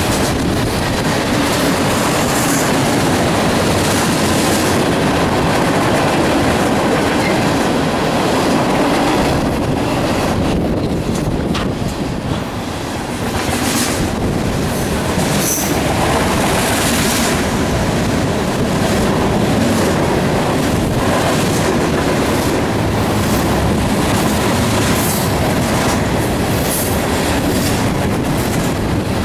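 Freight cars of a long train rolling past: a steady rumble of steel wheels on rail, with continual clickety-clack over the rail joints and some wheel squeal. The sound dips briefly about halfway through, then carries on.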